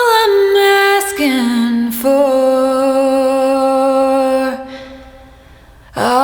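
Wordless female vocals singing long, slow held notes, with more than one pitch sounding at once. The sound dies away about five seconds in, and a new sung note starts just before the end.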